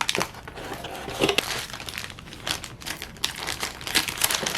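Packaging crinkling and rustling with scattered sharp clicks and knocks as a computer motherboard is handled and unpacked.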